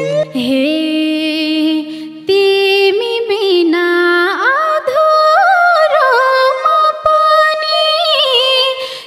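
Nepali dohori folk music: a melody of long held notes that glide and waver in ornaments, with a voice singing. There is a brief break about two seconds in.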